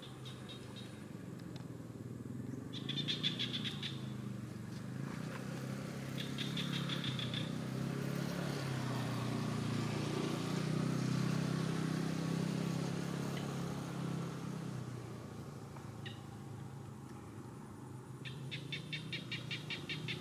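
A motor vehicle passing, its low rumble swelling to a peak about halfway through and then fading. Three short, high, rapid chirping trills come about three seconds in, around seven seconds, and near the end.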